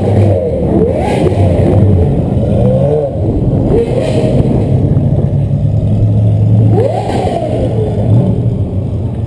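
Sports car engines running and revving as the cars drive slowly past, with sharp rising revs about a second in and again about seven seconds in over a steady low engine drone.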